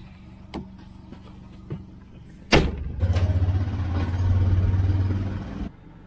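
A few light clicks and rattles from a John Deere Gator's cab, then a sharp door slam about two and a half seconds in. A vehicle engine then runs loudly for about three seconds and cuts off suddenly shortly before the end.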